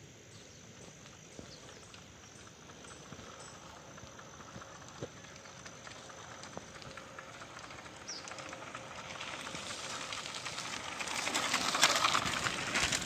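A bicycle approaching along a gravel road. The crunch and rattle of its tyres on the loose surface grows louder from about eight seconds in and is loudest as it passes close near the end.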